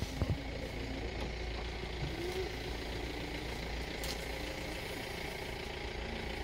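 Vehicle engine idling steadily, a low even rumble, with a short click about four seconds in.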